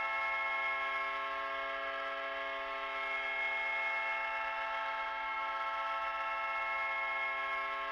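Ice hockey arena goal horn blowing one long, steady blast: a chord of several tones held without change.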